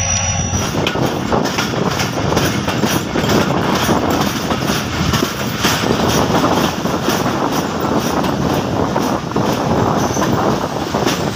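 Passenger train running on the rails, heard from an open coach doorway: a steady rumble and rush of noise with the wheels clacking irregularly over the track.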